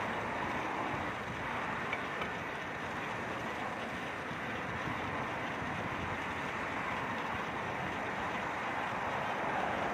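Steady noise of riding a bicycle: tyres on the road and wind across the microphone, with two faint ticks about two seconds in.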